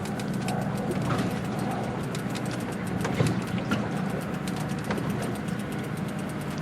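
Steady low motor hum, like a boat engine running, with scattered light clicks and knocks over it.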